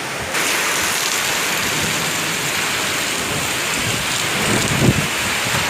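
Heavy rain pouring down in a steady hiss, with a low rumble about four and a half seconds in.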